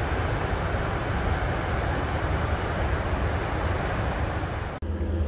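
Steady rushing roar of water released through Jackson Lake Dam's outlet, cutting off suddenly near the end.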